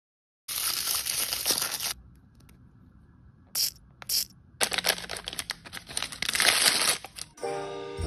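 Close-up crinkling and rustling of blind-bag wrapping being handled, in two stretches with two short sharp clicks between them. Music with bell-like tones starts near the end.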